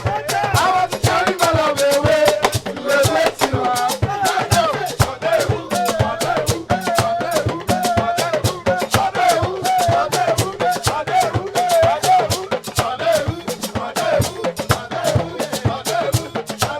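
A hymn sung to a shaker or rattle keeping a steady rhythm of quick strokes.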